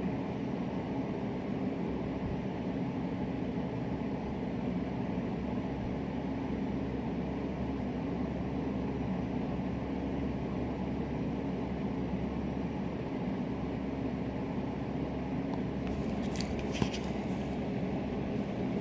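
Steady low machine hum filling a small room, unchanging throughout, with a few light clicks near the end.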